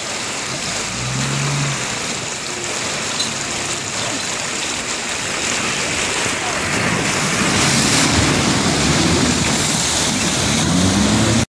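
Shallow rocky river running steadily. In the last few seconds a 4x4 wades through it: the water splashing grows louder and the engine rises in pitch.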